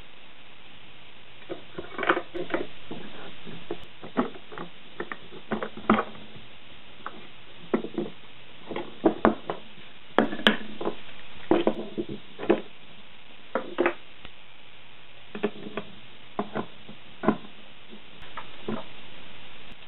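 Steel combination wrenches clinking on nuts along threaded rod as they are tightened, with irregular clicks and knocks from tools and printed plastic parts being handled and set down on a workbench.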